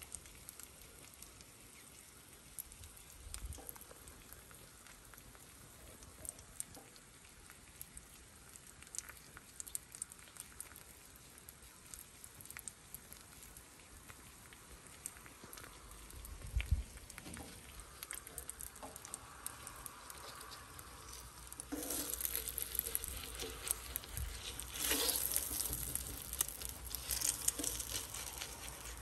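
Eggs frying in butter on a flat-top griddle: a faint steady sizzle with scattered small pops and spits, growing louder and busier in the last third.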